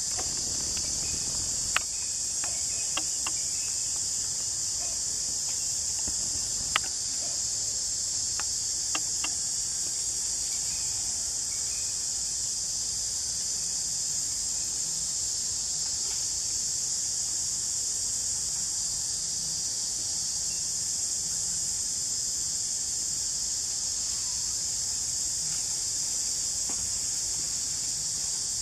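Steady high-pitched drone of an insect chorus, unbroken throughout. A few sharp clicks in the first ten seconds, two of them louder.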